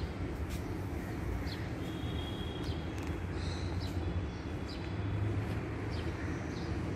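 Steady low rumble of street traffic, with short high bird chirps about once a second.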